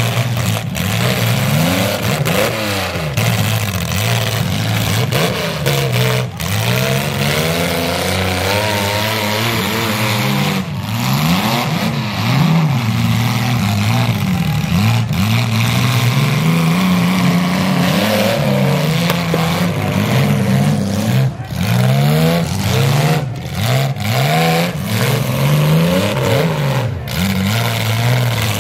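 Several demolition derby compact cars' engines revving hard and falling back over and over, overlapping, as the cars ram and push each other in the arena.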